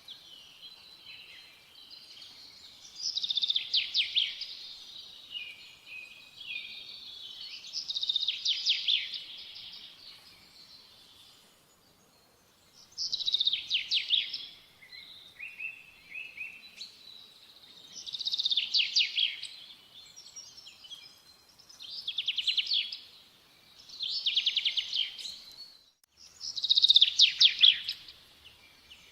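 A songbird singing the same short, fast trilled phrase over and over, about seven times, each phrase lasting a second or so, with softer chirps in between.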